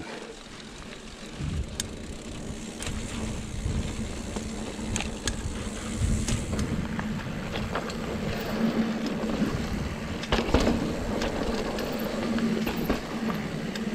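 Ibis Ripmo AF mountain bike riding along a dry dirt singletrack: steady tyre rumble on the dirt, with scattered clicks and rattles from the bike over bumps.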